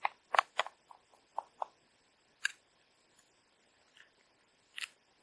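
A metal spoon scraping sauce out of a plastic ready-meal tray into a metal camping pot: a quick run of short scrapes and clicks in the first second and a half, then three single clicks spread out after.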